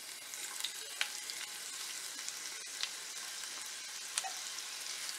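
Sliced white onion sizzling steadily in hot oil in a nonstick frying pan, being sautéed, with scattered sharp crackles through the hiss.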